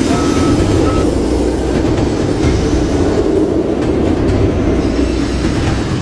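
Steel roller coaster train running along its track: a steady rumble of wheels on rails mixed with rushing wind. A faint high whine drops out about a second in.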